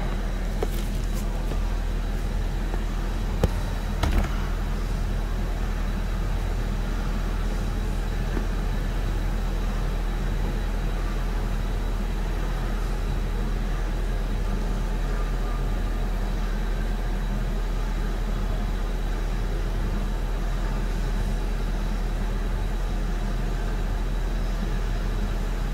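2011 Ford Fiesta's four-cylinder engine idling steadily, heard from inside the cabin. A couple of brief clicks sound about three and four seconds in.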